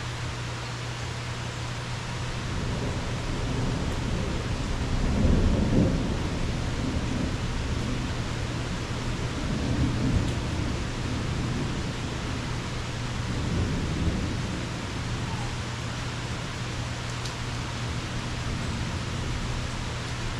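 Rolling thunder over steady rain. The rumble builds, is loudest about a quarter of the way in, swells twice more, and then dies away.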